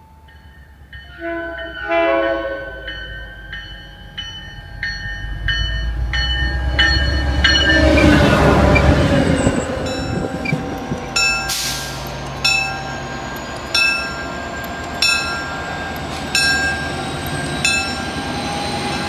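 MBTA EMD F40PH-2C locomotive's air horn sounding chord blasts as the train passes with a loud rumble. It is followed by the locomotive bell ringing steadily, about three strikes every two seconds.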